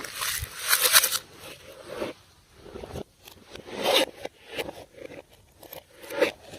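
Slime being squished and stretched by hand: irregular sticky squelches and crackles, a longer one at the start and then shorter ones about every second.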